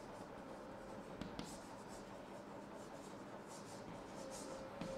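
Chalk writing on a blackboard: faint, irregular scratching strokes of the chalk, with a light tap or two as it meets the board.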